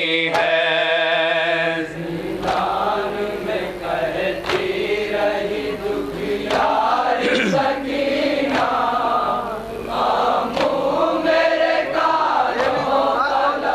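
Men's voices chanting an Urdu noha (Shia lament) in chorus, with sharp strikes about every two seconds, the matam chest-beating that keeps the noha's beat.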